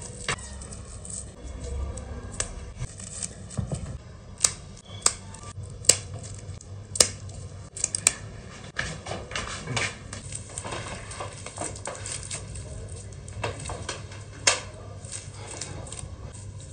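Scattered sharp clicks and knocks at irregular moments, the loudest between about four and eight seconds in and another near fourteen seconds, over a low steady hum.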